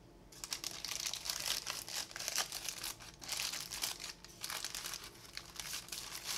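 Parchment paper lining a loaf tin crinkling and rustling as hands fold and tuck it around the shaped bread dough: a busy run of crisp crackles.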